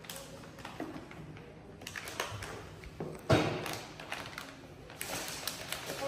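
Small taps and knocks with plastic rustling as a toddler handles a snack bag and moves around small plastic chairs, with one sharp, louder thump a little past three seconds in.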